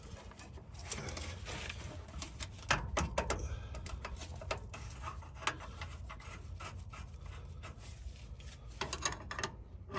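Hands working the new fuel filter and its metal fuel-line fittings into place: faint rubbing and scraping with scattered light clicks, a few sharper ones about three seconds in.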